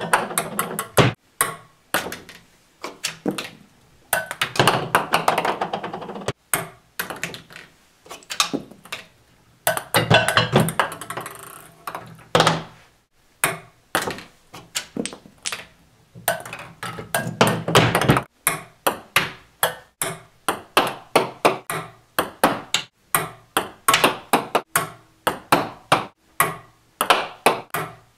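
Ping-pong balls dropping, rolling and bouncing on wooden ramps, blocks and a tabletop, over and over. Each drop gives a string of sharp clicks that speed up as the bounces die away.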